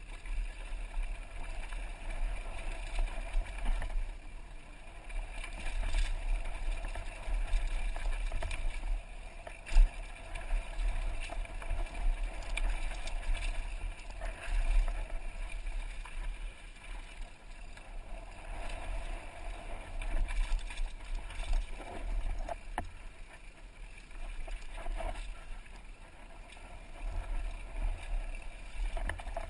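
Downhill mountain bike ridden fast over a dirt and rock trail, heard from a helmet-mounted camera: a continuous low rumble of wind on the microphone and tyres on the ground, with rattles and knocks from the bike over bumps. One sharp knock about ten seconds in is the loudest.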